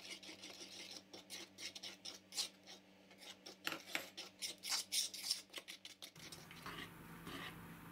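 A utensil stirring flour into cake batter in a wooden bowl: quick, irregular scraping strokes, several a second, with fainter strokes near the end.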